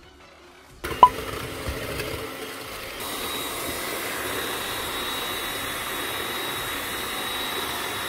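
Electric hand mixer whisking egg whites into meringue in a bowl: it starts about a second in with a sharp clink, then runs steadily and louder from about three seconds in.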